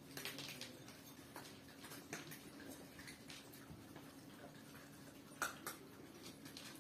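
Small poodles eating dry kibble from bowls and moving about on a laminate floor: faint, scattered crunches and clicks, one a little louder about five and a half seconds in, over a faint steady hum.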